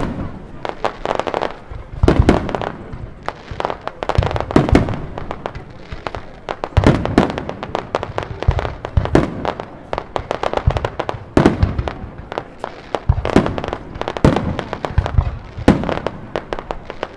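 Aerial fireworks display: shells bursting one after another, a loud bang every second or two with smaller crackling reports in between.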